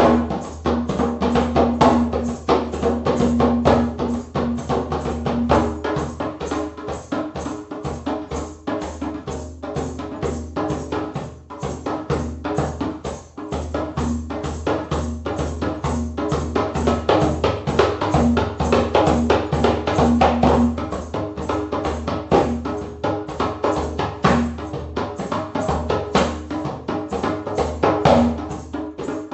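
Background music with a fast, steady drum beat and a steady bass line.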